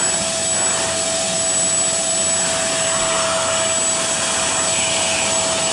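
Carpet shampooer's suction motor running steadily with a constant whine, sucking water up from wet carpet through its handheld upholstery tool.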